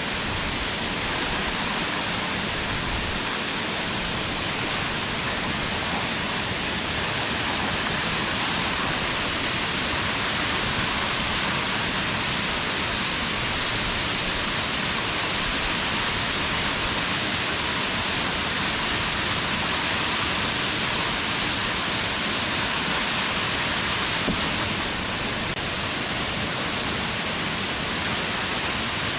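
Waterfall: a steady, dense rush of falling water, strongest in the upper-middle range, unchanging throughout.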